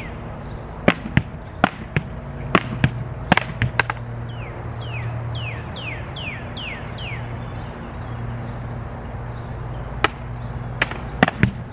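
Tennis ball rallied against a plywood board with a racquet whose strings are coated solid with Flex Seal. Sharp knocks of the ball off the coated racquet face, the board and the ground come in a quick run over the first few seconds, with a few more near the end. A bird sings a series of falling whistled notes over a steady low hum.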